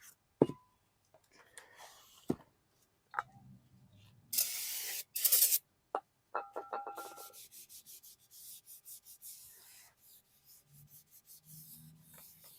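Aerosol brake parts cleaner sprayed onto a new brake rotor in two hissing bursts, a long one then a short one, to strip its factory coating. Before it come a few sharp knocks of the parts being handled; after it, quick rubbing strokes as the rotor is wiped down.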